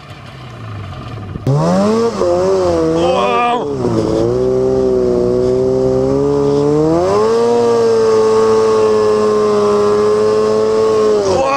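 Polaris Switchback Assault 800 two-stroke snowmobile engine revving hard through deep snow, heard close up from the rider's helmet. It cuts in abruptly about a second and a half in, its pitch rising and falling, then holds high and steady for several seconds before dropping near the end.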